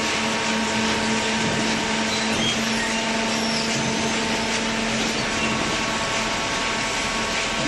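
Hydraulic baler's electric motor and hydraulic pump running steadily: an even machine noise over a constant low hum, with no knocks or changes.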